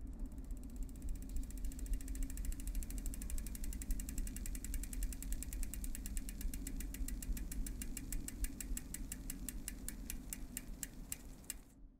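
Bicycle freewheel hub ticking as a spun wheel coasts down: rapid clicks that slow steadily and stop shortly before the end, over a low steady hum.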